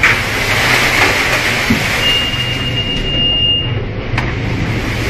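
Storm wind and heavy sea noise heard from inside a cargo ship's bridge, over a steady low hum. A high steady whistle is held for about two seconds midway, and a sharp click comes near the end.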